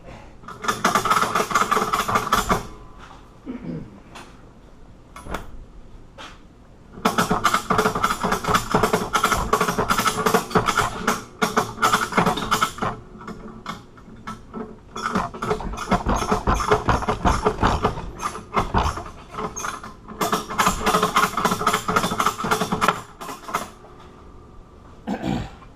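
Bolt cutter jaws working around a hardened padlock shackle, with metal-on-metal crunching and grinding in several long bursts of a few seconds each and short pauses between. The metal rings steadily through each burst.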